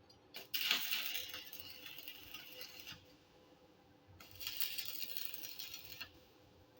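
Electric arc welding crackling in two runs, the first about two and a half seconds long and the second about two seconds, each starting and stopping abruptly: strip-plate fins being welded onto a steel hollow-tube roller.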